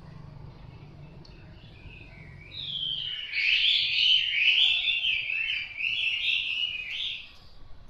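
A songbird singing a loud, varied warbling song that starts about two and a half seconds in and breaks off about seven seconds in.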